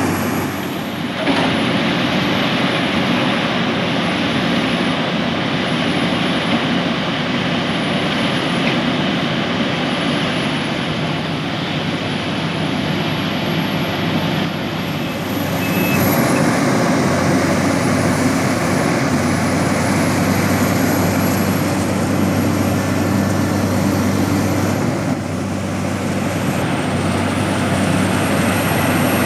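Sumitomo SH350 LHD excavator working, its diesel engine running steadily, with a faint high whine wavering in pitch above it. The engine note rises about halfway through and dips briefly near the end.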